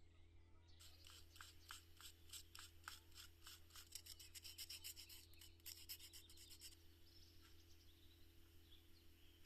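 Quick rubbing strokes of hand work on a small miniature furniture part, about three a second. They start about a second in and stop near seven seconds.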